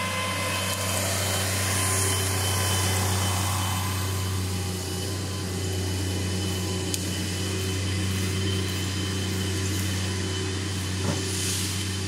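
Engine of a Bobcat stand-on mini track loader running steadily at an even speed, with a low, constant hum.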